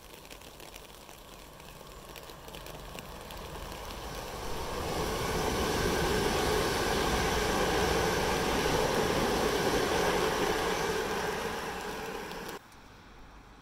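Electric passenger train passing at speed, a steady rushing rail and wheel noise that swells over a few seconds, holds loud, then cuts off suddenly near the end.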